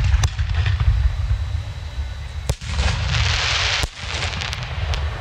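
Aerial fireworks shells bursting: sharp bangs at the start, about two and a half seconds in and just under four seconds in. Between the last two bangs comes a loud hiss of crackle that stops suddenly, all over a steady low rumble.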